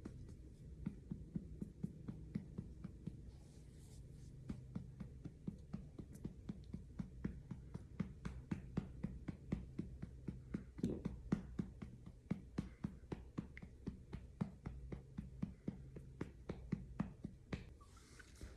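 A hand lightly patting a newborn's back to bring up a burp: a steady run of soft thumps, about three a second.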